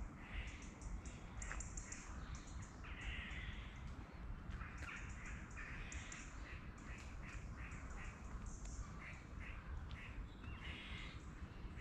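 Birds in the tree canopy calling, many short calls in quick runs, over a steady low rumble.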